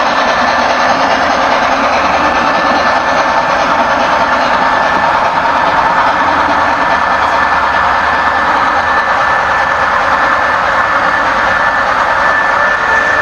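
Model freight train of tank cars rolling past on metal track: a loud, steady rumble of wheels on rail. A thin steady whine grows stronger toward the end.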